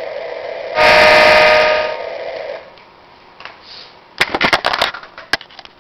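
Toy freight train's motor running with a steady whir, sounding its electronic horn once about a second in; the running noise stops about halfway through, followed by a cluster of sharp clicks and knocks near the end.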